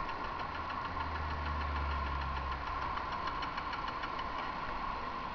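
Honda CG 150 Titan motorcycle's single-cylinder engine running steadily, with a fine rapid ticking over a steady hum.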